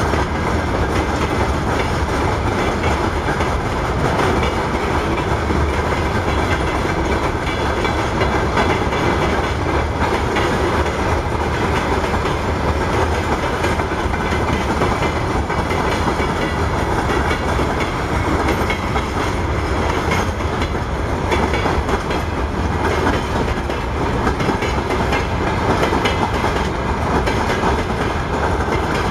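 Freight train wagons rolling steadily past at close range, their wheels clattering over the rail joints with a continuous heavy rumble.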